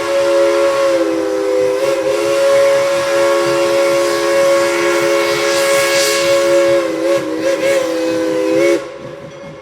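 Steam whistle of Tweetsie Railroad's 2-8-2 Mikado locomotive No. 190 sounding one long chime blast, several notes together over a hiss of steam. The blast wavers in pitch shortly before it cuts off sharply near the end.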